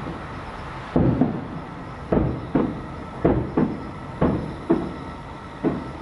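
Aerial firework shells bursting at a distance: a quick series of about ten sharp booms starting about a second in, each with a short fading echo.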